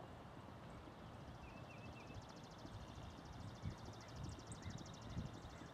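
Faint outdoor ambience. A high, fast, evenly pulsed trill starts about a second in and lasts about four seconds, with a few short chirps early in the trill, over a low rumble of wind noise.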